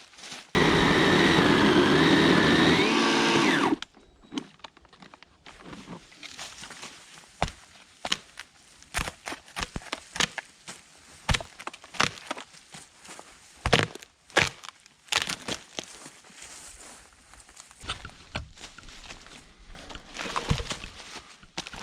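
Electric chainsaw running for about three seconds and then cutting off, followed by many scattered sharp woody knocks and cracks.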